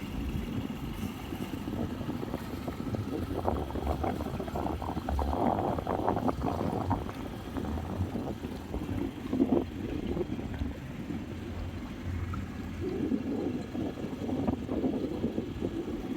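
Motorboat engine running steadily under way, with uneven rushing noise that swells about three to seven seconds in and again near the end.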